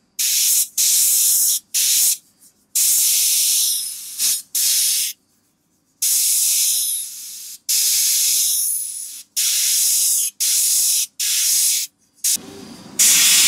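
Gravity-feed airbrush spraying white paint onto a lure in about ten short hissing bursts, each cut off sharply as the trigger is released.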